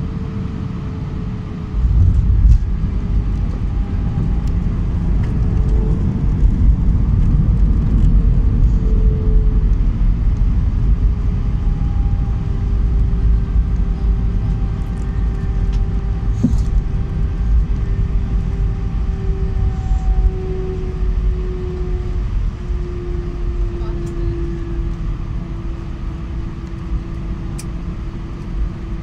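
Airbus A318 touching down, heard from inside the cabin: about two seconds in a sudden loud rumble of wheels on the runway and engines sets in. It stays loud through the rollout with ground spoilers raised, then eases as the airliner slows, with an engine tone slowly falling in pitch.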